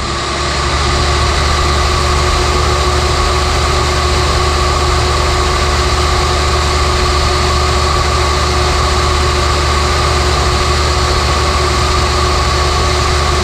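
Table saw running steadily at full speed, a constant motor hum with a steady blade whine, getting louder over about the first second.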